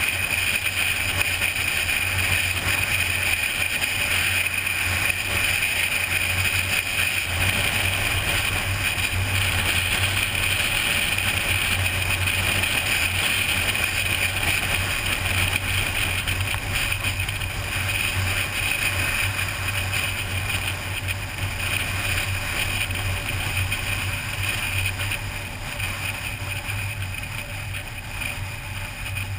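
A car cruising at highway speed, heard from a camera mounted outside on the hood: a steady rush of wind and road noise with a low hum, growing a little quieter near the end.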